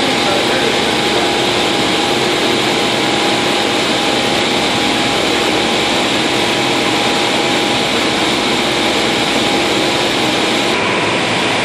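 LIBA tricot warp knitting machine running at speed: a loud, steady mechanical din, with a thin steady whine that stops shortly before the end.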